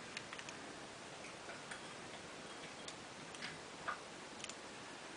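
Faint, irregular small clicks and ticks of small metal parts being handled while a carburetor's throttle linkage and spring are fitted, over a steady low hiss.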